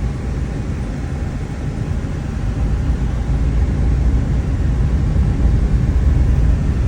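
Car driving, heard from inside the cabin: a steady low rumble of road and engine noise that grows a little louder over the second half.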